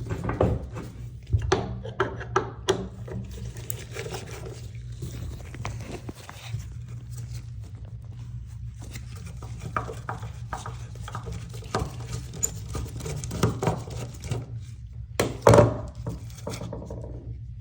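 Scattered knocks, clinks and rubbing of hand tools and metal plumbing fittings being handled, over a steady low hum. There is a louder knock about fifteen seconds in.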